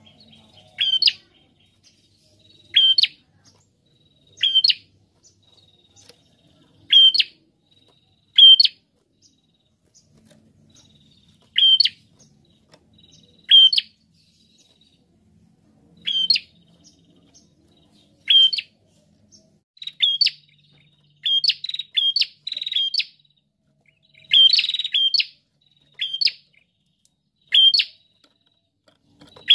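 Caged tailorbird (prenjak) calling: short, sharp, high-pitched notes repeated every one and a half to two seconds, coming quicker and closer together in the last third, with one longer call near the end.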